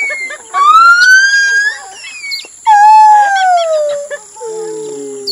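Gibbon singing: long, clear hooting notes that glide in pitch, one rising and then two falling, each lower than the one before.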